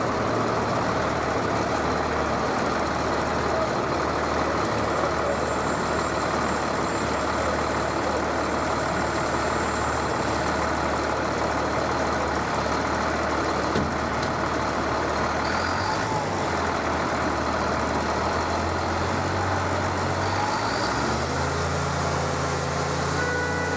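Heavy utility truck's engine running as it drives slowly past, a steady low drone whose pitch steps up a few seconds before the end.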